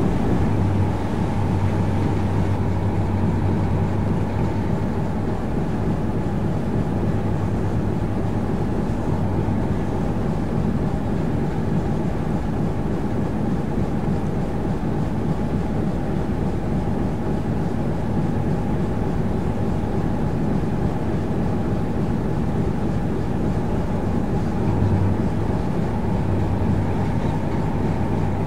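Diesel engine of the 1948 single-screw motor tug Kent running steadily underway, a constant low drone heard from on board.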